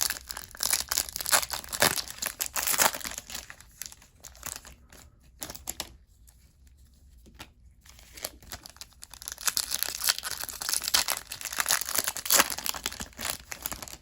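Foil wrappers of Bowman Chrome card packs crinkling and tearing as the packs are torn open and handled, in two busy spells with a quieter stretch in the middle.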